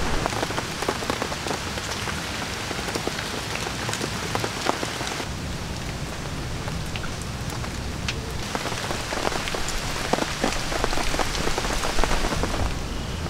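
Steady rain falling on a camp tarp and tent: many separate drops tapping over a constant hiss of rain.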